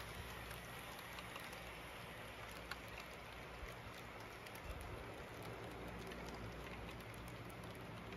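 HO-scale model freight train rolling along the track: a steady patter of small clicks from the wheels on the rails, over a low hum.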